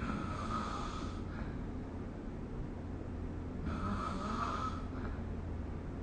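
A sleeping person snoring: two snores about a second long each, the second coming roughly four seconds after the first, over a steady low hum.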